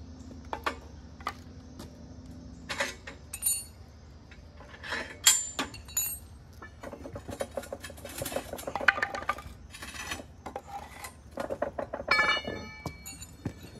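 Steel forge parts clinking and knocking as the wheel pins and brackets are handled and worked into place. The knocks are irregular, some with a brief metallic ring, and come thickest about two-thirds of the way through and near the end.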